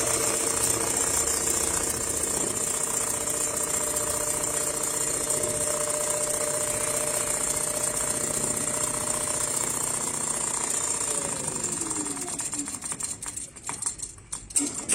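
Automatic CNC sewing machine running steadily at speed, with a steady motor hum. About eleven seconds in its pitch falls as it slows to a stop, followed by a few sharp clicks near the end.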